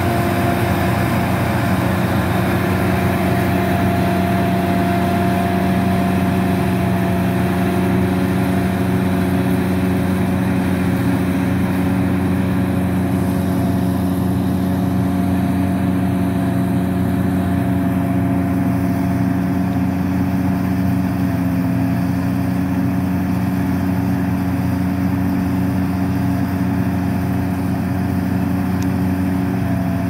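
Laverda M132 combine harvester's diesel engine running at steady working speed with a constant hum while the machine cuts a rice paddy on its tracks.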